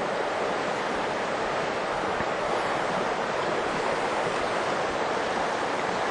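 Steady rush of a river running high after rain, water flowing fast over a stony bed.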